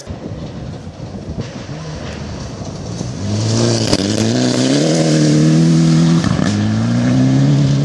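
Mitsubishi Lancer Evolution rally car approaching and sliding through a gravel corner at full throttle. Its engine gets louder over the first few seconds, then runs loud and high, its pitch stepping up and down. Gravel sprays from the tyres as it passes. Just after six seconds the engine note drops sharply at a gear change, then climbs again as it drives away.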